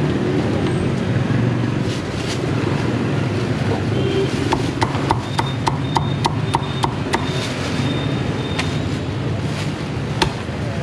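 Cleaver chopping roast pork on a wooden chopping block: from about halfway through, a run of sharp chops, two or three a second, over steady street traffic noise.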